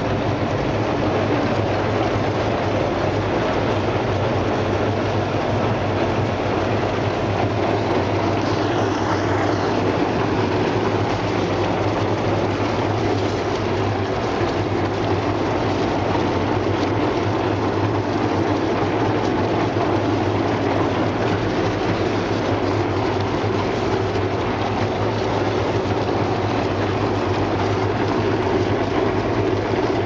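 Brush-roller fish scale removing and washing machine running steadily, its rollers turning the fish under the water spray, with a constant low motor hum.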